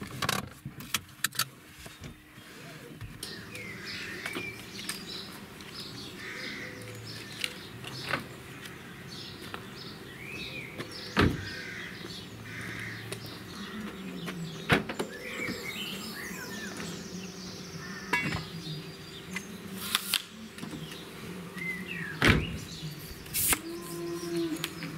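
Small birds chirping and singing, with several sharp knocks and clunks spread through from car doors and gear being handled.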